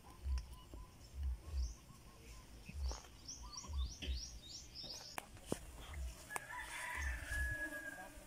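A rooster crowing once, a long held call starting past the middle, after a quick run of high, rising chirps from a small bird. Low thumps come about once a second throughout.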